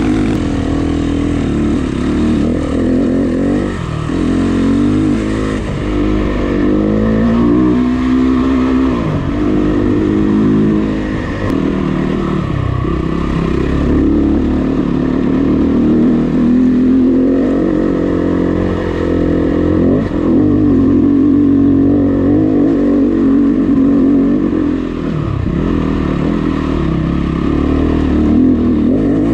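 Dirt bike engine running under way on a rough dirt trail, its revs rising and falling over and over as the throttle opens and closes.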